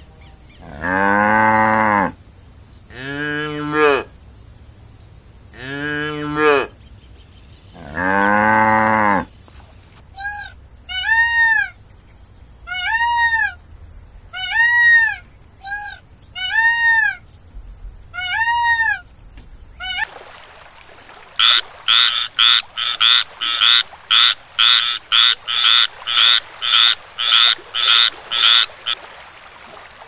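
Cattle mooing: four long, deep calls. Then peafowl calling, a series of short arched calls about one a second. Near the end, an unidentified animal gives a rapid run of about fifteen sharp calls, roughly two a second.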